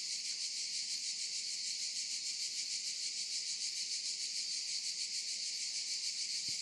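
A steady, high-pitched chorus of chirring insects, a continuous shimmer with a fast pulse to it.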